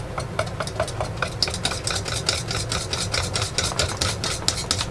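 Hand whisk beating pancake batter in a bowl, the wires clicking against the bowl about five times a second, over a steady low hum.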